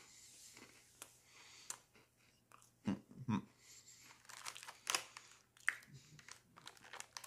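Oreo cookie being chewed with the mouth close to the microphone: irregular crunches, two louder ones about three seconds in, then a run of smaller crunches.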